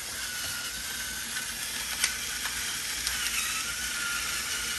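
Electric pepper grinder running, its small motor whining thinly over a steady grinding hiss as it grinds peppercorns.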